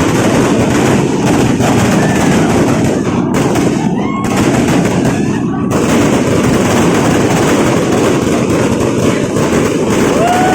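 Fireworks going off in a rapid, continuous barrage of pops and bangs, dense like machine-gun fire, with a few short rising whistles. A held horn-like tone starts near the end.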